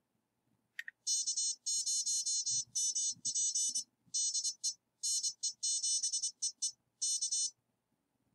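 Morse code sidetone, a high buzzy tone keyed on and off at about 24 words per minute. It starts about a second in and sends the callsigns 'K0MP DE NE7EE' followed by the prosign K, which hands the contact back to the other station.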